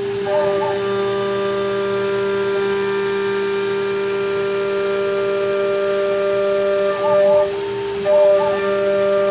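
Grizzly G0704 CNC mill spindle at about 12,000 RPM milling thin aluminum with a three-flute end mill: a steady whine over the hiss of air-mist coolant. Briefly near the start and twice near the end the cutting tone drops out and short rising-and-falling whirrs of the axis drives are heard.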